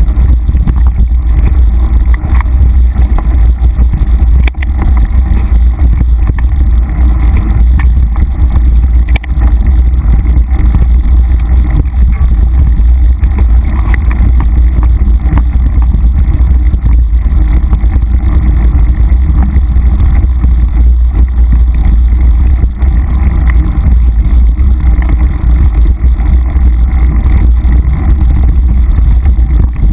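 Heavy wind rumble on a mountain-bike-mounted camera's microphone during a fast ride along a rough dirt singletrack, with the bike rattling and many short knocks from the trail.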